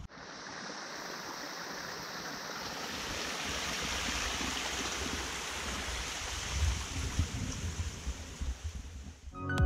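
A small mountain stream running over rocks, a steady even rush of water, with a few soft low bumps near the end.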